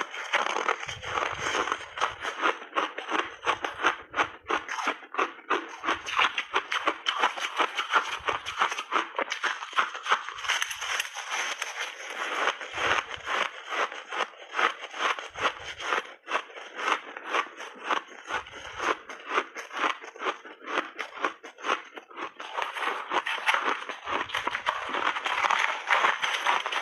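Close-up crunching of a mouth chewing hard-frozen ice and refrozen mixed berries: rapid, dense crunches, with a dull low thud every few seconds.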